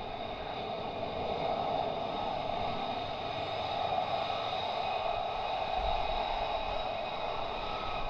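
F-35A's F135 turbofan jet engine running steadily at low power: a constant whine with thin high tones over a steady rush, with no rise or surge.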